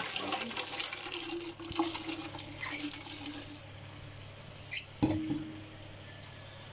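Soaked wheat grains and their soaking water poured into a metal pressure-cooker pot, splashing and pattering, tailing off about halfway through. A single knock with a short ring comes about five seconds in.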